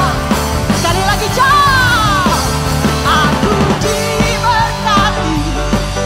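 Live worship band playing an upbeat rock-style song, with a woman singing lead into a microphone over electric guitar.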